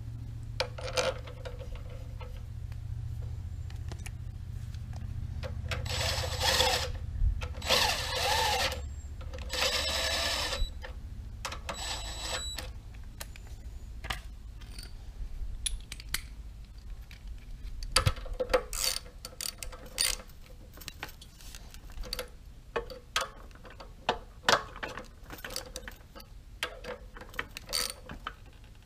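Socket ratchet clicking and metal tools clinking on a pressure washer's pump head as the check-valve caps are fitted back on: three longer runs of rapid ratchet clicks about six to ten seconds in, then scattered single clicks and clinks.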